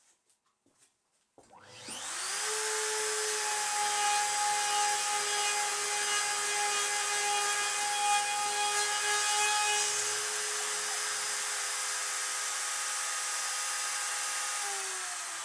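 CNC router spindle (a handheld-style router motor) spinning up about a second and a half in, then running steadily with a high whine as the bit drills into the sacrificial plate. Near the end its pitch falls as the spindle winds down.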